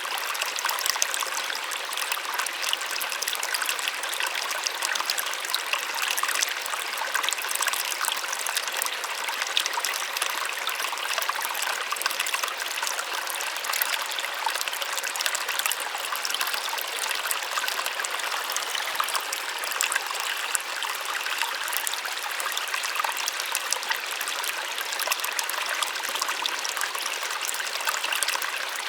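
Small waterfall splashing steadily: an even, bright rush of falling water with fine splashes, little low rumble.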